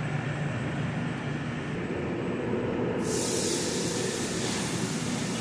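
Steady low hum of a commercial kitchen's gas charbroiler and ventilation; about three seconds in, a bright steady hiss starts as a flank steak sizzles on the hot grill grates.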